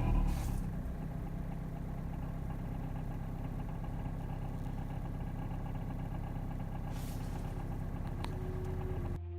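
Renault Kangoo 1.5 dCi diesel engine idling steadily, with the annoying noise that the owner traces to the crankshaft pulley rubbing against a plastic cover.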